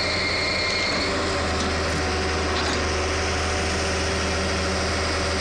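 Old Hitachi crawler excavator's diesel engine running steadily while the machine is worked on a low-loader trailer. Its low drone grows a little stronger about a second in.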